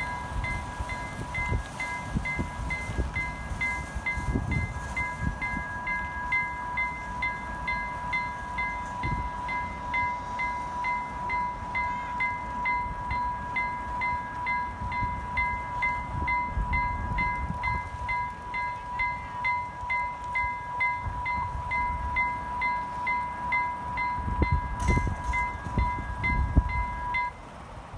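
Electronic level-crossing bell (Vialis WMA E-Bell) ringing steadily as the crossing warns of an approaching train, then cutting off about a second before the end. Wind rumbles on the microphone underneath.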